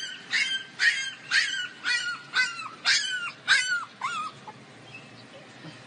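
Puppy yipping and whimpering over and over, about two short, high cries a second, each falling in pitch, stopping about four seconds in.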